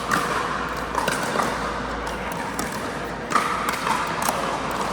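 Pickleball rally on an indoor court: sharp pops of paddles hitting the hard plastic ball and the ball bouncing on the floor, a second or two apart, over a steady background din.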